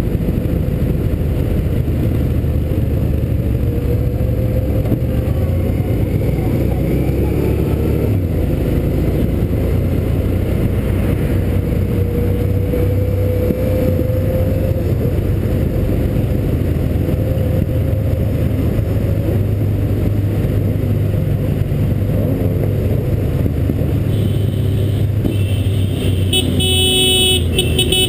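Motorcycle engine running steadily while cruising, heard from on board the bike. Near the end a horn sounds in several short toots.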